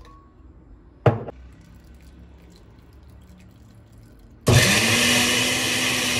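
A countertop blender switches on about four and a half seconds in, its motor spinning up fast to a steady high speed as it purées cooked dried chiles, garlic cloves and vinegar in a glass jar. Before that, a single knock about a second in.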